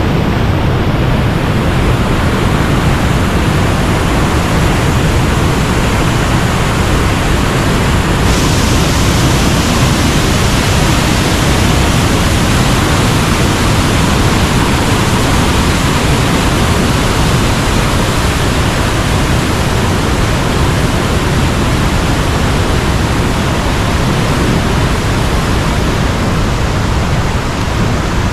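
Waterfall: a loud, steady rush of falling water, turning brighter and hissier about eight seconds in.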